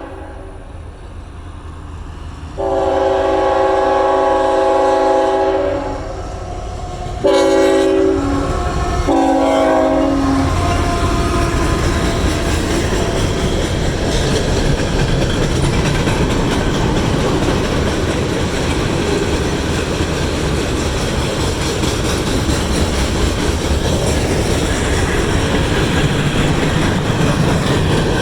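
Nathan Airchime K5HL five-chime locomotive horn sounding a chord: one long blast about two and a half seconds in, then a second blast broken into a few short toots. After that the train rolls past with steady wheel and rail clatter.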